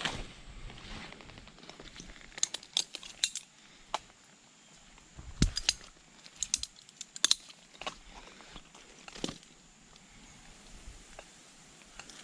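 Scattered sharp clicks and clinks, with a few louder knocks, one with a low thud about five seconds in.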